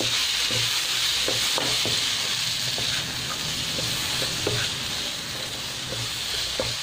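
Diced pineapple sizzling in hot oil in a nonstick wok over high heat, with a wooden spatula scraping and tapping against the pan at irregular intervals as it is stirred.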